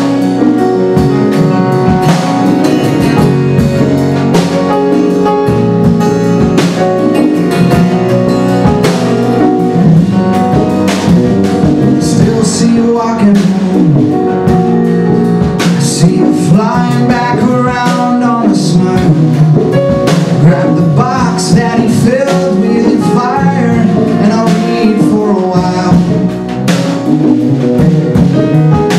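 Live band playing a song on grand piano, bass, drum kit and hand percussion, with acoustic guitar near the start. A man sings over it from about twelve seconds in.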